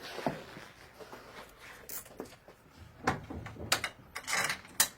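Scattered clicks and knocks of bolts and metal frame parts being handled and fitted while assembling a gas-lift storage bed, with a short scrape near the end.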